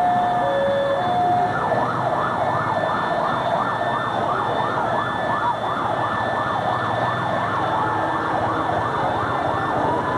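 Electronic siren switching patterns: a two-tone hi-lo alternation for about the first second and a half, then a fast up-and-down yelp of about two and a half sweeps a second.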